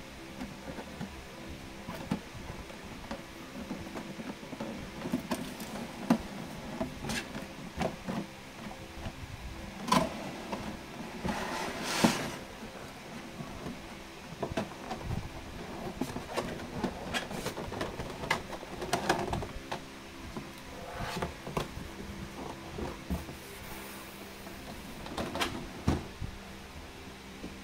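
Cardboard and clear plastic packaging handled by hand: irregular scrapes, rustles and light clicks as a figure box slides against cardboard and a plastic blister tray is moved. The loudest is a short scrape about twelve seconds in, over a faint steady hum.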